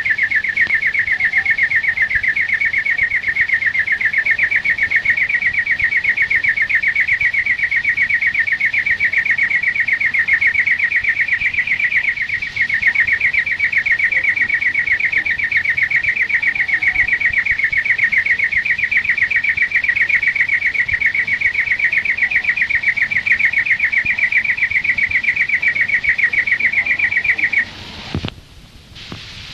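European greenfinch (flurya) singing one long, fast, even trill that runs on unbroken for nearly half a minute. Near the end it breaks off abruptly with a click.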